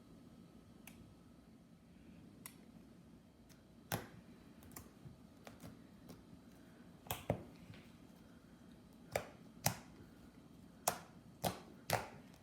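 Homemade glue-and-shaving-cream slime being kneaded by hand, giving off sharp little pops and clicks: a few at first, then more often in the second half.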